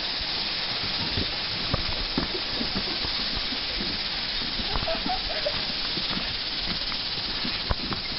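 Steady hiss under scattered irregular knocks of footsteps on a swing bridge's walkway; a bird chirps a few times about five seconds in.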